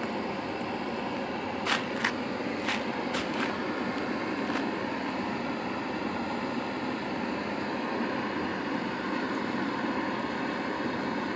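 Flame gun burning with a steady rushing hiss. About six sharp cracks come in its first few seconds.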